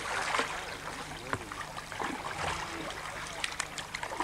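Wooden paddles dipping and pulling through river water beside a wooden dug-out canoe, with water trickling and lapping, and a few short knocks about three and a half seconds in. Faint voices in the background.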